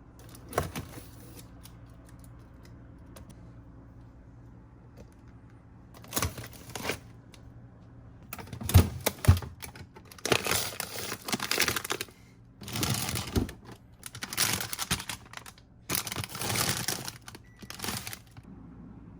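Things in a packed refrigerator being handled, heard as repeated bursts of rustling and crinkling packaging with knocks, from about six seconds in. There is a single sharp click near the start and a low steady hum underneath.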